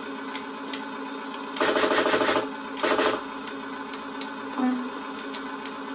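An RC tank's sound unit plays a machine-gun effect through its speaker: a burst of rapid fire about a second and a half in, then a shorter burst, and a brief low beep near the end. Small clicks come from the transmitter's buttons.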